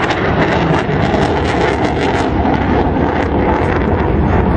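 Panavia Tornado jet's twin engines rumbling steadily as it flies past at a distance, mixed with wind buffeting the microphone.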